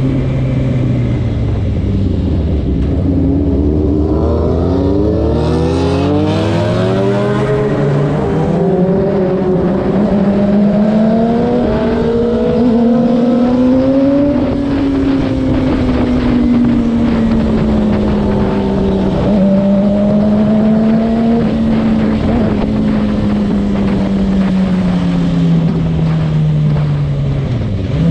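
Sportbike engine heard from the rider's seat over wind rush: the revs fall at first, climb hard about four seconds in, then hold a steady cruise with small rises and falls, dropping again near the end as the bike slows.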